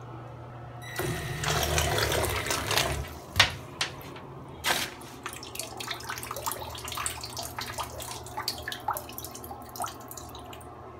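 Small homemade RC boat's propeller churning bathtub water for about two seconds, then water splashing and dripping with scattered clicks as the wet boat is handled.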